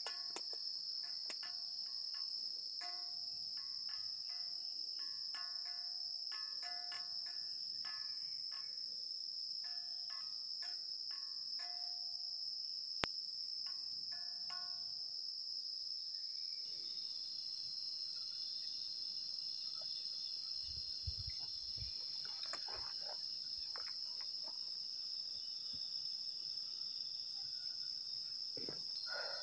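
A steady night chorus of crickets and other insects. Over it, for about the first half, comes a run of short ringing metallic notes in quick groups, several a second, like a gamelan accompaniment of kenong-type gongs; they stop about halfway.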